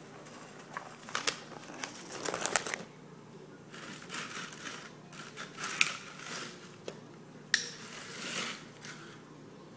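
Plastic cereal-bag liner crinkling and rustling as cereal boxes are handled and closed, in short scattered bursts with a few sharp clicks.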